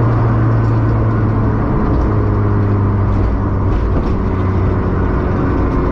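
Honda Civic EF hatchback's engine droning steadily with road noise, heard from inside the cabin while driving, with a slight drop in pitch about two seconds in.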